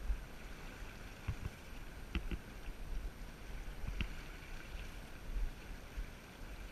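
Fast, shallow river current rushing over rocks around a wading angler, a steady wash of water. A few short sharp clicks cut through it, two close together about two seconds in and one about four seconds in.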